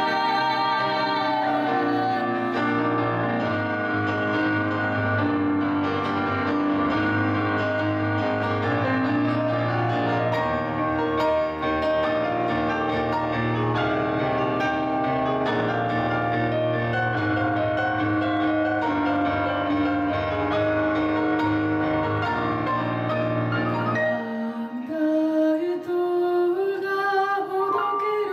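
Live band playing a pop song with keyboard and bass; about 24 seconds in, the bass drops out, leaving a lighter accompaniment under a singing voice.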